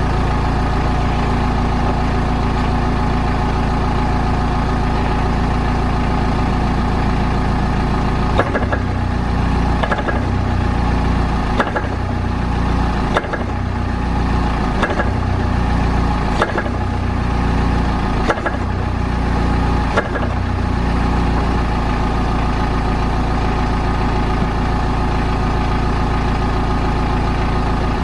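Car running with a steady drone, and over the middle part a series of about eight clunks from the rear of the car, roughly one every second and a half.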